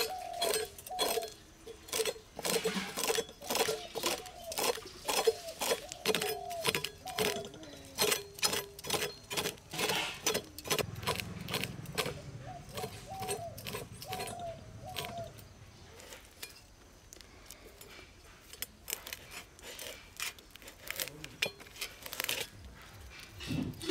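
Rapid, irregular clinking and clicking of bangles on a wrist as hands work dried fish. A run of short repeated animal calls goes with it and stops about fifteen seconds in.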